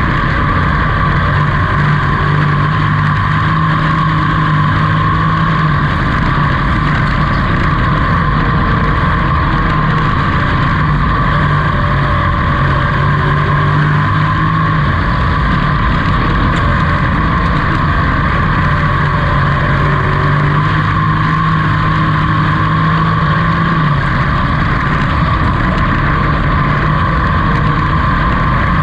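Dirt-track pro truck's race engine running hard, heard from inside the cab during a race. It is loud and unbroken, its pitch climbing and holding, then dropping, in a cycle that repeats about every eight to ten seconds.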